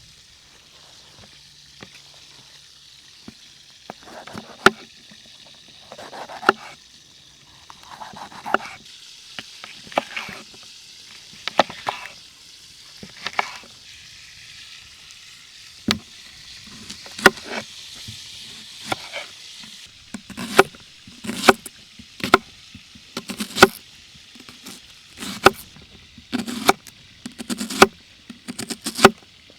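Food sizzling in a hot frying pan, with a utensil scraping and knocking against the pan as it is stirred or turned: scattered strokes at first, then about one a second near the end.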